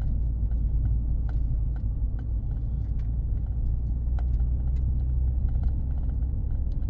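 Road noise inside a moving vehicle's cabin: a steady low rumble of tyres and engine, with scattered small ticks and rattles over it.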